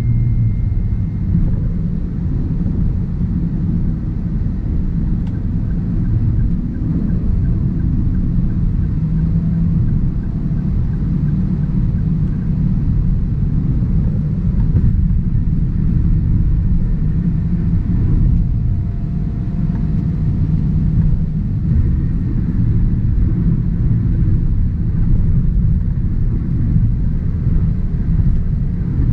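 Steady cabin noise of a 2023 Toyota Avanza 1.3 CVT cruising on the highway: a low, even road and tyre rumble with the engine running underneath, heard from inside the car.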